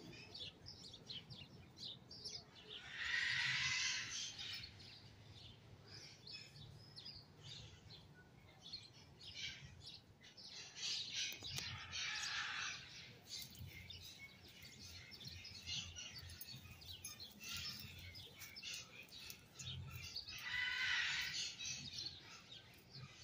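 Small birds chirping and tweeting throughout, with three louder, rougher bird calls standing out: about three seconds in, about twelve seconds in, and near the end.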